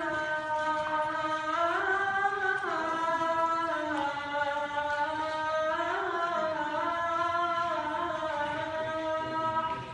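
A man calling the adhan, the Islamic call to prayer, unaccompanied: one long melismatic phrase whose pitch rises and falls several times, ending near the close.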